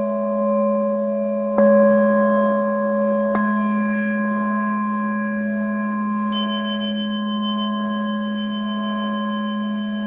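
Singing bowls ringing with long sustained tones. They are struck again about a second and a half in and again a little over three seconds in, and a higher ringing tone joins a little after six seconds.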